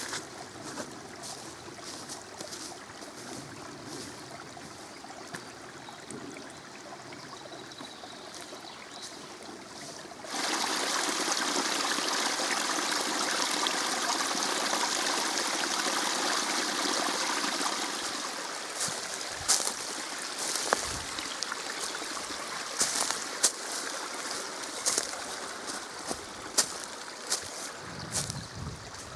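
Small forest brook babbling and trickling over rocks. About ten seconds in the rush jumps louder where the water spills down a little cascade, then drops back about eight seconds later, with scattered sharp clicks over the flow.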